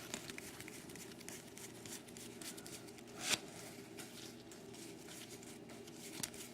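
Trading cards being handled and flipped through, soft sliding and light clicks with one louder swish about three seconds in, over a faint steady hum.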